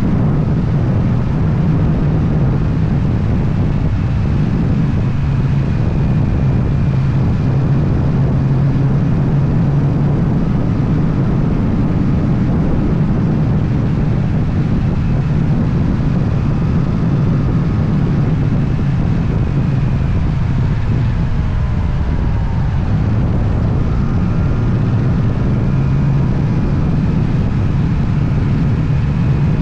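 Motorcycle engine running steadily while riding, with a continuous low hum over rumbling road and air noise. It eases off briefly about two-thirds of the way through, then picks up again.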